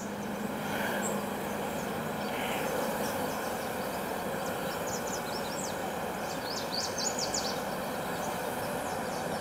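Steady buzzing hum of a dense, populous honeybee colony on the frames of an open hive: a strong, healthy colony of about 50,000 bees. A few faint high chirps come in around the middle.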